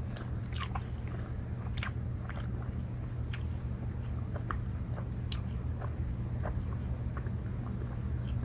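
A person chewing sour gummy bears: irregular soft, wet mouth clicks scattered throughout, over a steady low hum.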